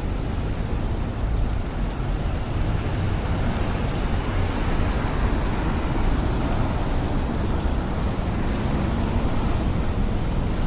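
Steady city street noise with a low rumble, typical of traffic, and a couple of faint clicks about halfway through.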